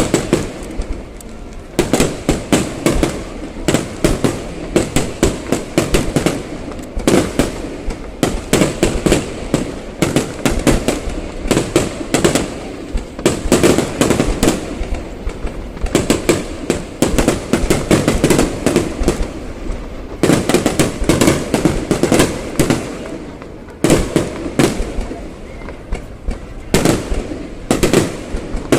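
Aerial fireworks bursting in rapid volleys: a dense run of sharp bangs and crackles, with a couple of short lulls.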